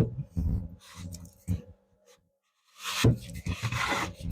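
Cloth rubbing over freshly waxed oak, buffing off the excess wax in quick scrubbing strokes, with a pause of about a second in the middle.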